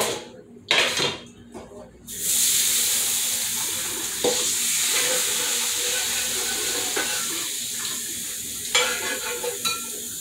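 A hot frying pan hissing and sizzling under tap water as it is rinsed to cool it down. The hiss starts suddenly about two seconds in and slowly dies away as the pan cools, with a few knocks and clanks of the pan before and after.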